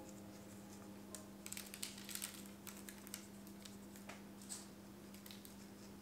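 Flax and poppy seeds sprinkled by hand onto raw cracker dough on a parchment-lined baking tray, making faint, scattered light ticks and patter as they land. A low steady hum runs underneath.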